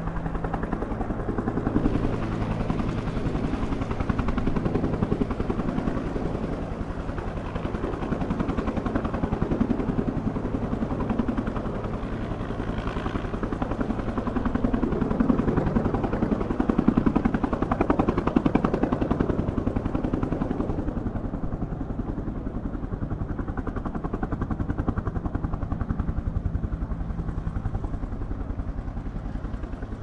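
UH-1 'Huey' helicopter running, its two-bladed main rotor beating in rapid, even pulses over a steady low engine drone. The sharper top end thins out about two-thirds of the way through, and the level eases slightly near the end.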